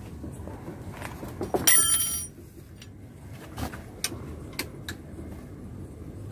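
Metal parts and an Allen key being handled while a pipe stand is put together: a few sharp clicks and knocks, with one loud, brief metallic ring about two seconds in.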